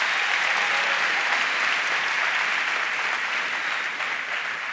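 A large audience applauding: dense, steady clapping that tapers off slightly toward the end.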